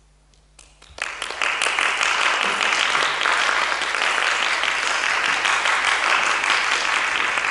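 Audience applauding: the clapping begins about a second in and keeps up steadily.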